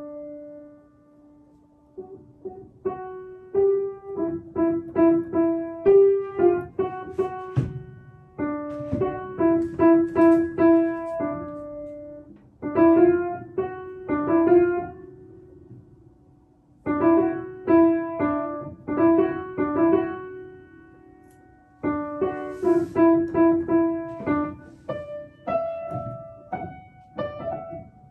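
Upright piano played by a young child: a simple melody of single struck notes in short phrases, each ringing and fading, with brief pauses between phrases as the same passage is played again several times.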